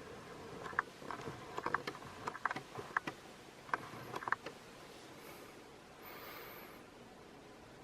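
Canarm 48-inch industrial ceiling fan coasting down, with about a dozen irregular light clicks and ticks over the first four seconds and a faint hum at the start. The fan's motor had been seized and was freed with heavy oiling, and it still turns with some resistance.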